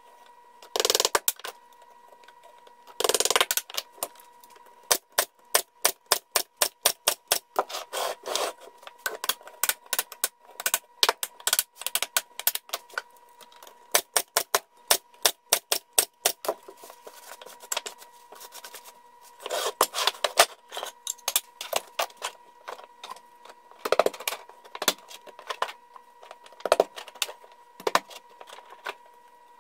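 Wooden beehive frame parts knocking and rubbing as they are fitted into an assembly jig. In the middle there is a long run of sharp, rapid clicks. A faint steady hum runs underneath.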